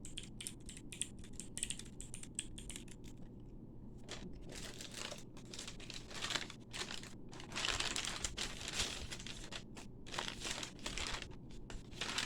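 A keyboard-key clicker fidget clicking rapidly for the first few seconds, then crinkling and rustling of a bag being handled, in irregular bursts.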